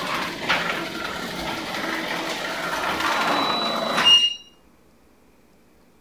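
Heavy 18-foot solid-wood garage door closing under its electric opener: a steady running, rattling noise as it travels down its tracks. About four seconds in it ends with a sharp thud and a brief metallic ring as the door seats shut.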